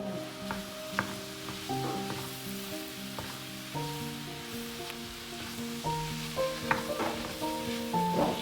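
Food sizzling in a frying pan while it is stirred, with a few sharp clicks of a utensil against the pan, over soft background music with held notes.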